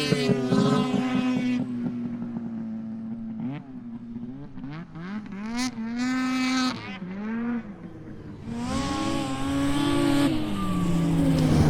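Snowmobile engines revving and passing, their pitch rising and falling repeatedly, growing louder and rougher near the end.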